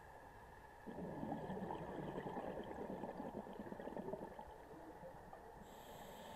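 A scuba diver breathing out through the regulator underwater: a burst of bubbling rumble starts about a second in and lasts about three seconds before fading.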